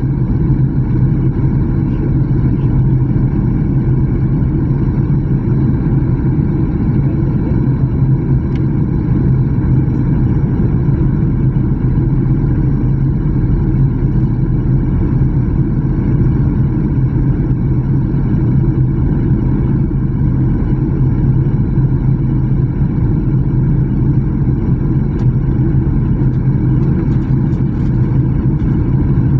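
Steady cabin noise of a jet airliner in flight, heard from a window seat: a constant low hum of the engines and the rush of air over the fuselage, unchanging throughout.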